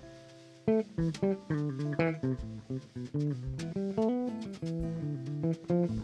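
Live band music led by an electric bass guitar playing a quick run of plucked notes. The run starts a little under a second in, after a held note dies away.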